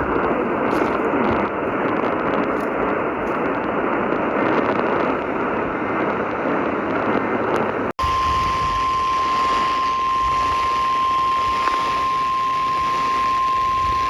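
Hiss and static from a weather radio receiver for about eight seconds, then a sudden cut. After the cut comes the steady single-pitch 1050 Hz NOAA Weather Radio warning alarm tone over lighter hiss, which signals that a National Weather Service warning broadcast is about to begin.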